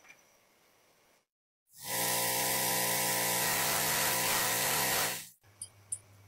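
Paint being sprayed onto a small black model car wheel: a loud steady hiss with a low hum under it, lasting about three and a half seconds and cutting in and out abruptly. Two light clicks follow near the end.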